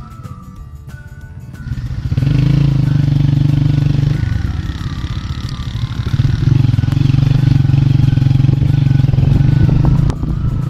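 Motorcycle engine running steadily close by, heard from the moving bike, coming in loudly about two seconds in. It eases off briefly in the middle and drops again near the end. Background music plays underneath.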